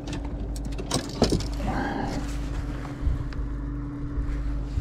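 A boat motor humming steadily at one constant pitch over a low rumble, with a few sharp clicks and rattles about a second in from the caught perch and its lure being handled on the line.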